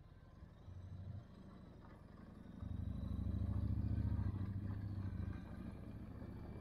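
Cruiser motorcycle's engine running, heard from the rider's seat as a low, steady throb. About two and a half seconds in it suddenly gets louder as it pulls harder, holds that for a few seconds, then eases back.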